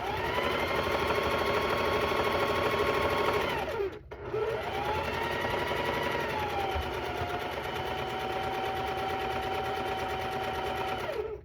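Electric sewing machine stitching a long seam in two runs. The motor whine rises to speed, holds steady and stops about four seconds in, then starts again and eases to a slower speed about seven seconds in before stopping near the end.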